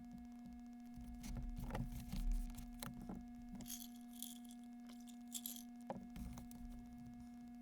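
Steady electrical hum, with a cluster of light taps, knocks and short rustles from small objects being handled between about one and six and a half seconds in.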